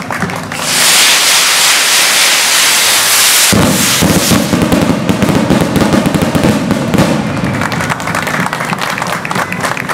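Fireworks: a pyrotechnic spark shower hisses loudly for about three seconds. It then breaks into a dense, rapid crackling, which thins out over the last couple of seconds.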